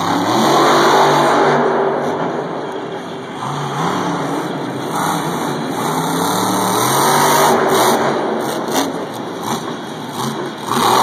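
Max D monster truck's engine revving hard and easing off several times, its pitch climbing and dropping as the truck drives and pops a wheelie.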